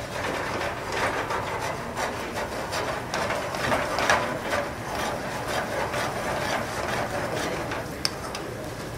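A spoon stirring and scraping pasta through a thick broccoli cream in a frying pan over a gas flame, in quick irregular strokes.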